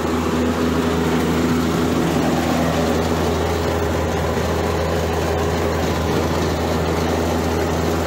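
Outdoor refrigeration condensing unit running with a steady hum from its compressor and condenser fan, back in operation after a contactor with a burnt coil was found to be the fault.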